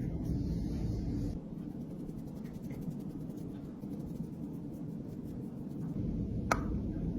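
Light, rapid scratching and rubbing over a steady low rumble, with a single sharp click about six and a half seconds in.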